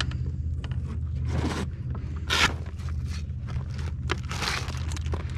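Scraping and rustling handling noise in several short strokes as the lid of a soft Hobie fish cooler bag is pulled open.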